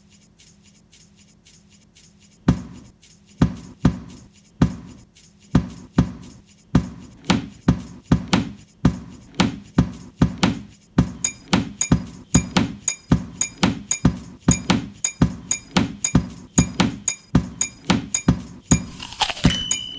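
A percussion beat played by hand on household objects: slaps and taps on a plastic bowl, a glass jar, and a frosted glass mug struck with a fork. It starts with faint light ticks. Strong hits come in about two seconds in, about one a second, then quicken into a steady rhythm with bright high ticks layered on top. Near the end a struck glass rings out.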